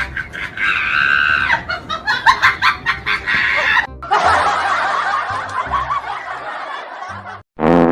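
Snickering laughter over background music, with a short sound rising in pitch just before the end.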